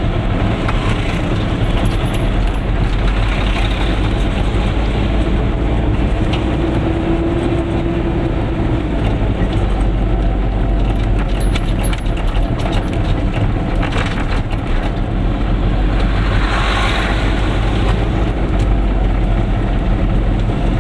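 Goggomobil's small two-stroke twin-cylinder engine running steadily under way, a constant low drone with road and wind noise, heard from inside the little car.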